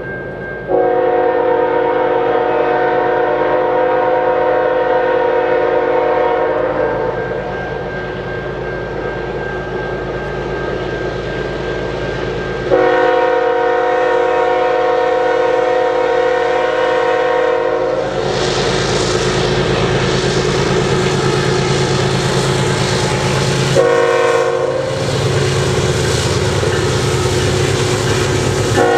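Multi-chime air horn of a CN ES44DC diesel locomotive leading a freight train, blown in two long blasts, then a short one, with a fourth starting near the end. Under and between the blasts is the rumble and rail noise of the train, louder as the locomotives come close in the second half.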